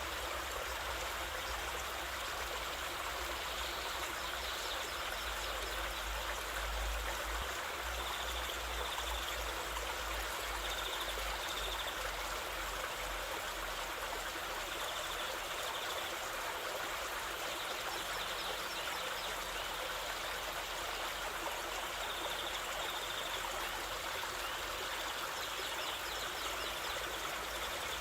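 Waterfall water rushing in a steady, even wash of noise, with faint short high chirps coming and going over it.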